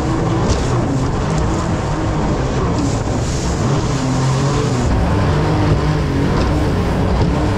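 Mini jet boat running under power through whitewater: its engine's drone under the rush and splash of rough water against the hull, with a few brief sharper splashes.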